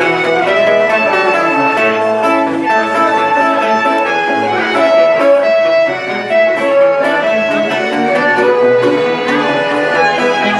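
A folk band playing live dance music, with bowed and plucked strings carrying the melody.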